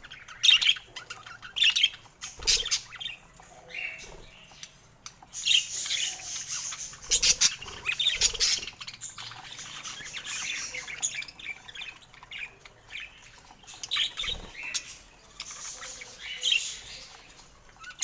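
Pet budgerigars chirping and squawking in short, irregular bursts of high-pitched calls, with louder squawks scattered throughout.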